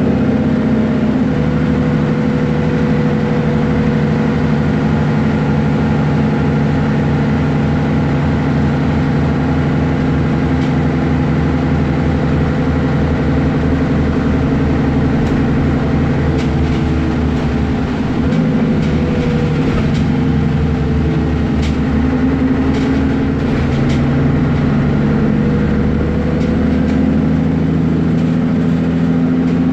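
Engine of a Mercedes-Benz Citaro O530G articulated bus running steadily while the bus drives, heard from on board. The engine note shifts about a second in and again a little past halfway, and there are scattered light clicks and rattles in the second half.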